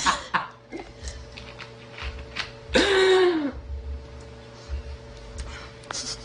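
A person burps once, a loud, pitched belch under a second long about halfway through, its pitch jumping up and then sagging. It is a belch after drinking cola.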